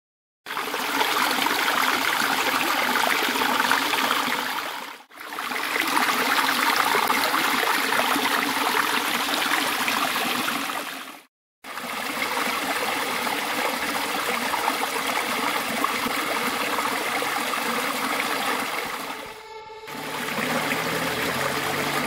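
Stream water rushing and splashing over rocks, a steady rushing sound broken by two short gaps. Music fades in near the end.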